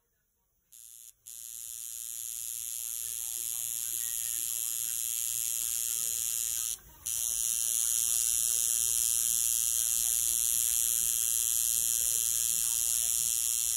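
A small electric motor appliance running with a steady high whirr. It switches on about a second in, catches after a brief stutter, grows louder over the next few seconds, and cuts out for a moment around seven seconds in before running on.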